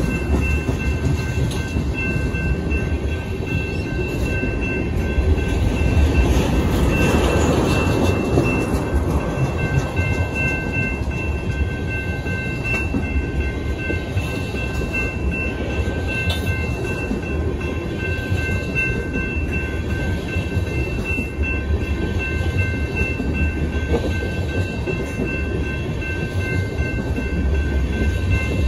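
Tank cars of an ethanol unit train rolling steadily past at close range, their wheels rumbling on the rails, with a faint steady high whine running alongside.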